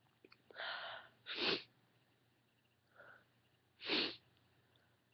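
A woman sneezing twice, about a second in and again near four seconds in, each a short sharp burst. A breathy in-breath leads into the first, and a faint breath comes before the second. The sneezes are induced by sniffing white and black pepper.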